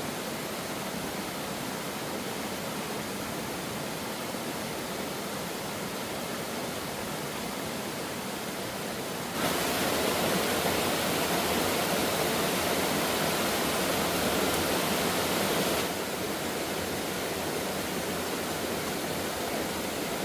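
Steady rush of a waterfall or fast mountain stream, an even hiss of falling water. About halfway in it suddenly gets louder and fuller for around six seconds, then drops back to the earlier level.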